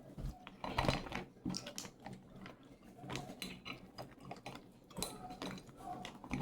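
Irregular small cracks, clicks and clinks from eating a seafood boil: crab shells being broken open and handled, with pieces knocking against a plate.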